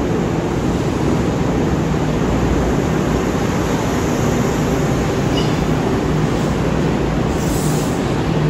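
Kintetsu 2800 series electric train running slowly into a station platform as it comes in to stop, with a steady rumble of wheels and running gear. There is a brief high squeal near the end.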